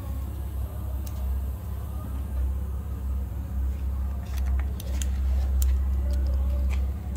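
Steady low rumble of background machinery, with a few faint light clicks about two-thirds of the way through.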